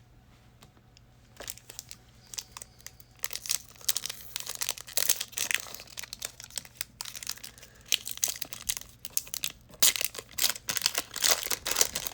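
A trading-card pack wrapper being ripped open and crinkled by hand. The crackling starts after a short quiet moment and grows busier over the last few seconds.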